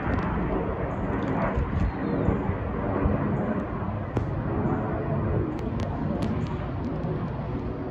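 Jet aircraft flying overhead, its engine noise a steady low rumble that slowly fades as it moves away.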